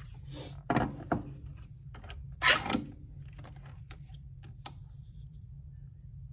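A Fiskars paper trimmer being handled on a tabletop. There are a couple of knocks as it is set down about a second in, then a louder scrape of card sliding onto the trimmer, and a few light clicks as the card is lined up.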